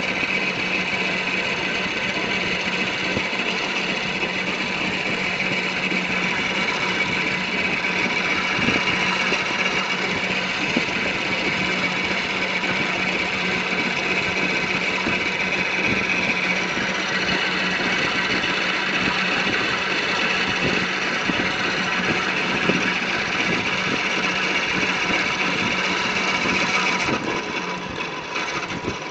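Cushman three-wheeled stand-up vehicle driven flat out: a steady mechanical drone with a high whine over a low hum. It drops in level and loses some of the whine about two seconds before the end.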